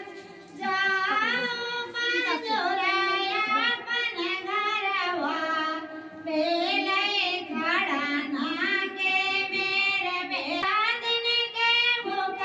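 Music: a high-pitched voice singing a devotional song in long, sliding, ornamented phrases, with brief pauses about half a second and six seconds in.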